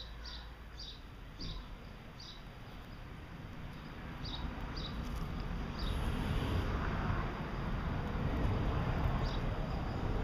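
A tabby cat hisses briefly at a kitten about six seconds in, over short high bird chirps repeating about twice a second. A low rushing, rustling noise grows louder from about four seconds in.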